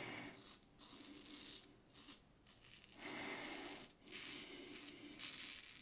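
Merkur 37C slant double-edge safety razor with a Derby blade drawn in several short strokes over a lathered cheek, cutting stubble with a faint raspy scrape. There is a brief lull between about two and three seconds in.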